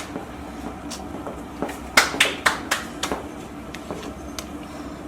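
A spoon or stirring stick knocking against the pot while thick dhido (maize porridge) is stirred and beaten: a quick run of about five sharp knocks about two seconds in, with lighter scattered taps before and after.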